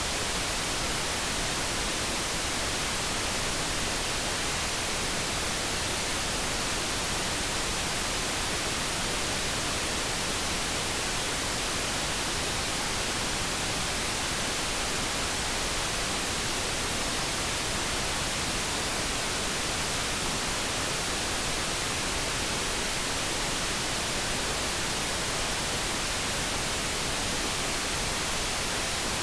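Steady synthetic background noise: an even, unbroken hiss with no tones, swells or breaks.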